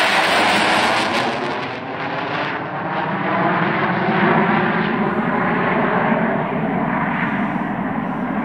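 Eurofighter Typhoon's twin EJ200 turbofan engines, loud as the jet passes overhead on a low approach, the pitch falling as it goes by. The higher hiss fades about two seconds in as it flies away, leaving a steady rumble.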